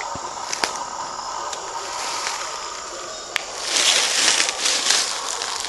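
Steady faint hiss, then from a little past halfway irregular crunching and rustling of footsteps in dry leaf litter on a forest floor.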